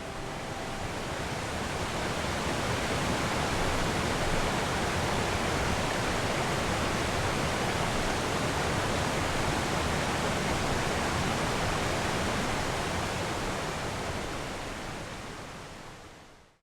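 Waterfall: a steady rush of falling water that swells up over the first few seconds and fades away near the end.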